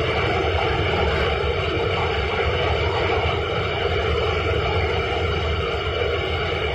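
Smoke-exhausting fire robot's large blower fan running steadily as it blows out a water mist, a continuous even drone with a low rumble underneath.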